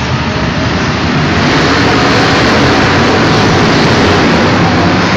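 Several BriSCA F1 stock cars' V8 engines running hard together as they race round an indoor arena track, a loud dense mix that swells a little about a second in.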